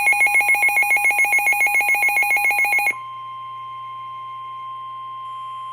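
Midland WR-400/WR-300 NOAA weather radio receiver sounding its alert: a loud, rapidly pulsing two-tone warble for about three seconds. It then gives way to the steady, quieter 1050 Hz warning alarm tone broadcast by NOAA Weather Radio, the signal that a warning message, here a flood warning, is about to be read.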